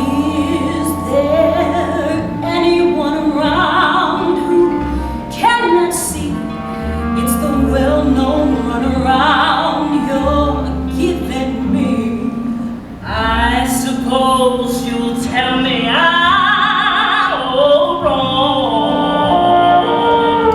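Stage-show music: a singer holding long notes with heavy vibrato over a band accompaniment.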